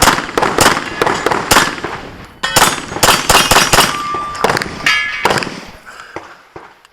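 Rapid pistol fire: quick strings of sharp shots, with a short pause about two seconds in, tapering off after about five seconds.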